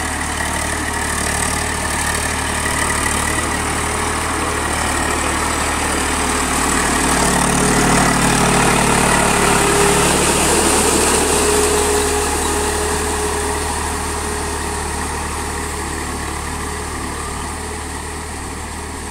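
Eicher 380 tractor's diesel engine running steadily while it pulls a rotavator through a flooded, muddy field. It grows louder as the tractor comes close about halfway through, then fades as it moves away.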